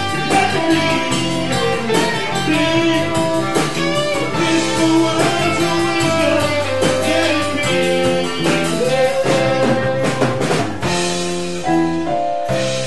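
Live rock band playing a slow ballad: electric guitar, drums and bass, with a lead line of bending notes over the chords.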